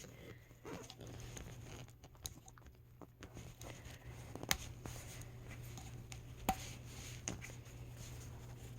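Light handling sounds: soft rustling and scattered small clicks from a doll and its clothes being handled, with two sharper clicks about four and a half and six and a half seconds in, over a low steady hum.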